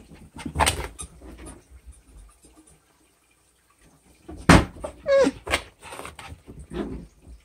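Thumps and knocks of a small dog racing around after its bath and bumping into furniture, the frenzied running it does every time it is bathed. The loudest thump comes about four and a half seconds in, with a short sound falling in pitch just after it.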